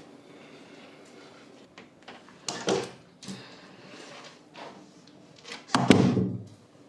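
Two sudden thumps about three seconds apart, the second the louder.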